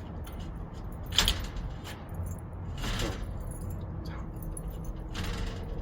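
Keys and a removed screen-door profile lock cylinder being handled, a few scattered metallic clicks and clinks, the sharpest about a second in and about three seconds in, over a steady low rumble.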